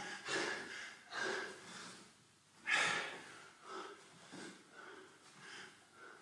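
A man breathing hard from high-intensity exercise, with short, forceful puffs of breath about once a second; the loudest comes about three seconds in.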